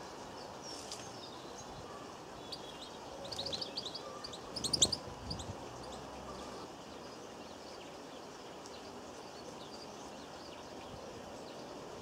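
European goldfinches giving quick high twittering calls, a cluster of chirps between about three and six seconds in, loudest near the middle, over a steady outdoor background hiss.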